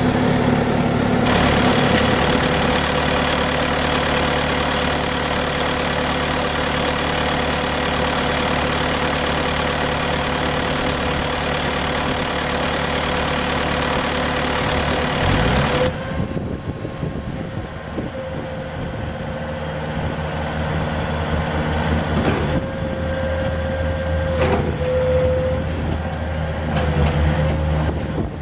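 Bobcat T250 rubber-track skid steer's Kubota diesel engine running steadily with a whine, then dropping to a quieter, lower run about sixteen seconds in.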